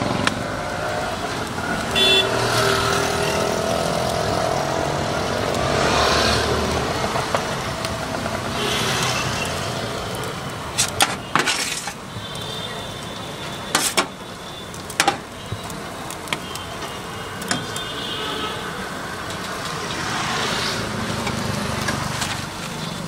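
Road traffic passing on a busy street, swelling and fading. A few sharp metal clinks come from a spatula and tongs against the stall's steel shawarma tray.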